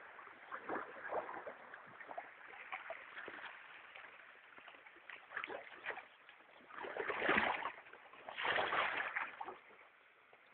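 Paddles dipping and splashing in fast river water as a crew paddles a boat. About seven and eight and a half seconds in come two louder surging splashes, each about a second long.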